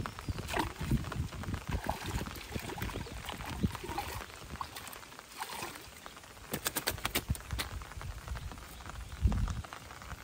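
Hooked fish splashing and thrashing at the surface of a pond as it is pulled in on a rod and line, over light rain pattering on the water. A low thump comes near the end.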